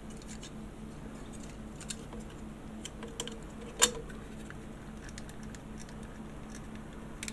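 Hard plastic model-kit parts being handled and pulled apart: scattered light clicks and taps, with one sharper click about four seconds in, over a faint steady hum.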